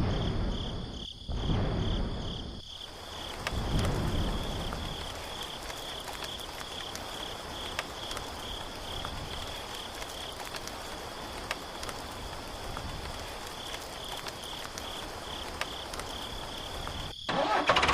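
Insects chirping steadily: a high, evenly pulsing tone over a background hiss, with a few low rumbles in the first four seconds.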